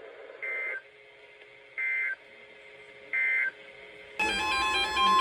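Emergency Alert System data bursts: three short, raspy two-tone bursts of the SAME header, each lasting under half a second and spaced just over a second apart, which encode the coming warning. About four seconds in, a loud steady alert tone starts.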